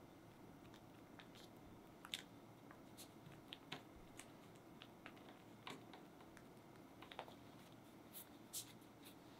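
Faint handling sounds of thin crepes spread with whipped cream being rolled up by hand on a cloth: soft rustles and scattered small ticks, the sharpest about two seconds in.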